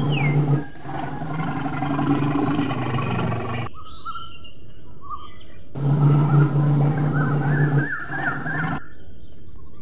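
Bear growling with a deep roar in two long bouts. The first fades about four seconds in and the second starts about two seconds later. Birds chirp in the gap and again near the end.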